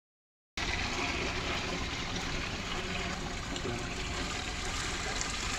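Water running steadily out of a small basin through its plug hole, gushing and trickling, starting abruptly about half a second in.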